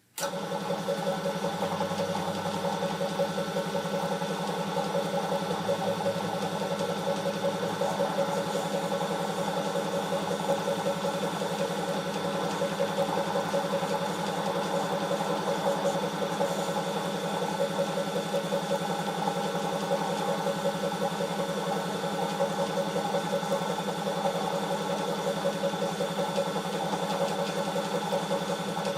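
A motor-driven machine switching on abruptly and running at a steady speed with an even, fast-pulsing hum.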